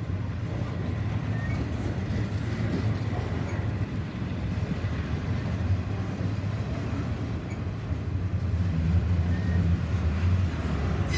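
Norfolk Southern double-stack intermodal freight cars rolling past on the rails with a steady low rumble, growing a little louder near the end.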